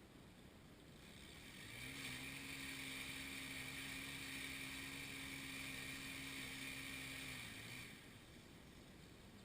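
A motor running steadily at one pitch, faint, for about six seconds, dipping slightly in pitch as it fades out near the end.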